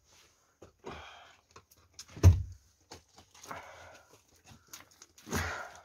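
Scuffs and knocks of someone stepping over loose rubble, with short breathy noises. One loud thump comes about two seconds in.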